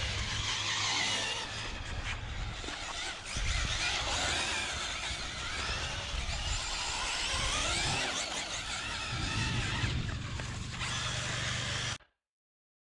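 A custom Arrma Typhon/Senton-based electric RC rally car being driven hard on concrete: its brushless motor whines, rising and falling with the throttle, and the tyres squeal as it slides. The sound cuts out abruptly near the end.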